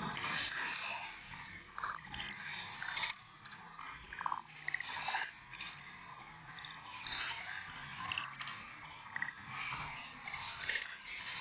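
Choppy water slapping, splashing and gurgling against the side of a canoe hull and a waterproof camera housing at the waterline, in irregular bursts, with water washing over the camera near the end.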